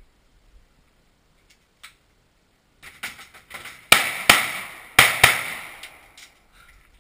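Four gunshots fired inside a small shooting house, in two quick double taps about a second apart, each with a short echoing tail. A few lighter knocks come just before the first shot.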